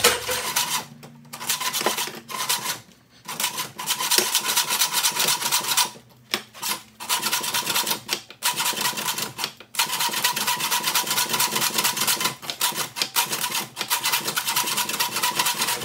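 An old hacksaw blade in a homemade wooden bow-saw frame sawing back and forth through steel bar, a fast run of rasping strokes with several brief pauses. The blade is dull and missing teeth, so it cuts slowly and the saw jumps around in the cut.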